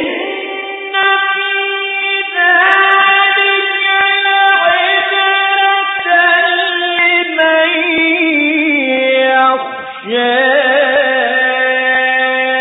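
A man's voice chanting Quran in the melodic tajweed style, with long, ornamented held notes whose pitch wavers and glides. A phrase ends about ten seconds in, and a new one starts at once.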